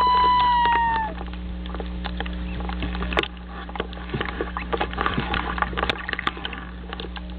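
Common loon call: one long, clear wail-like note, held and falling slightly at the end, stopping about a second in. After it come scattered light crackles and ticks.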